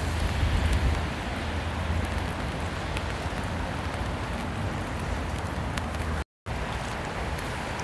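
Steady rain falling, an even hiss sprinkled with small drop ticks, over a low rumble. The sound cuts out briefly about six seconds in.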